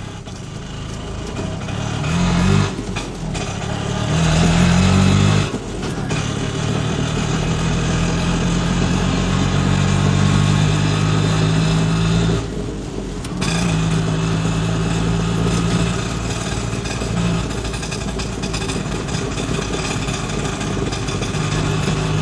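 A small vehicle engine running steadily, revving up briefly twice in the first few seconds and dipping for a moment past the middle.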